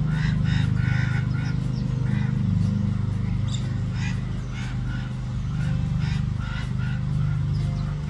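Calming background music with steady, sustained low notes, and short higher sounds repeating a few times a second over them.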